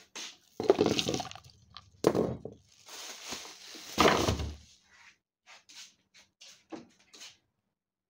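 Food jars and containers being taken out of a broken refrigerator and dropped into a plastic bag: three loud clattering thuds in the first half with rustling between them, then a run of light knocks and taps.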